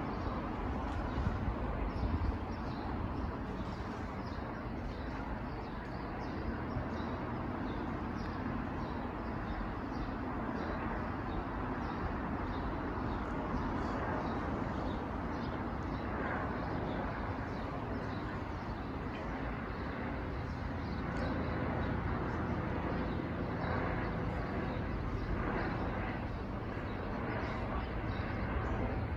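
Eurocopter EC135 twin-turbine police helicopter flying high overhead: a distant, steady rotor and engine drone over the noise of the city.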